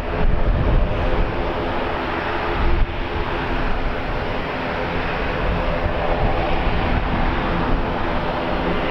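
Aircraft engines running steadily, with several constant tones over a rumbling drone. Gusty wind buffets the microphone, loudest near the start and about three seconds in.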